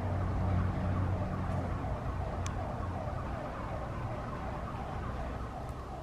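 Distant siren wailing in quick repeated up-and-down sweeps, over a low steady rumble of street traffic; both slowly fade.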